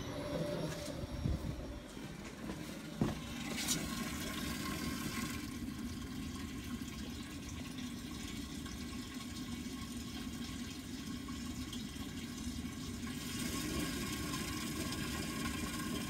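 Fuel running steadily into a plastic jug as the electric fuel pump drains the tank, with a thin steady whine from about four seconds in. A few sharp knocks come in the first four seconds.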